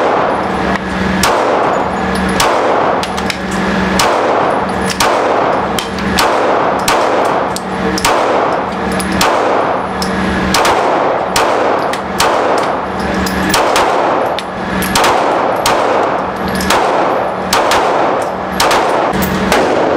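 A steady string of 9mm pistol shots from a Glock 17, roughly one to two a second, each crack ringing in the enclosed indoor range lane, with shots from the neighbouring lane mixed in.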